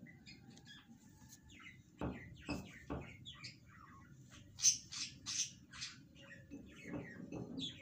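Birds chirping in quick short calls, most strongly about five seconds in. There are a few dull knocks about two and three seconds in.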